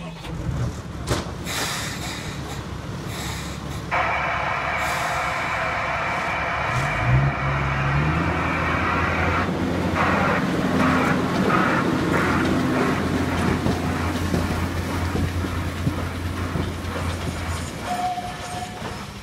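Diesel engine of the Botchan Ressha, a diesel locomotive styled as a steam engine, runs steadily, then revs up about halfway through as the train pulls away, with wheels clicking over the rail joints. A steady high tone sounds for about five seconds as it starts off.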